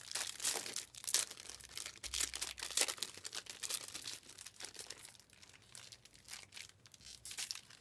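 Wrapper of a Panini Prizm trading-card pack crinkling and tearing open in quick, irregular crackles.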